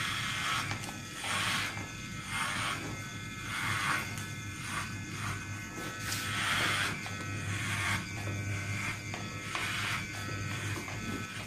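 Electric hair clippers fitted with a number 2 guard, buzzing steadily as they are run up through short hair in repeated strokes, about one a second.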